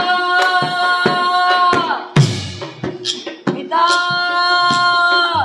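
A child's voice holding two long high notes, each about two seconds and sliding down at the end, over scattered drum beats with one heavy low hit between the notes.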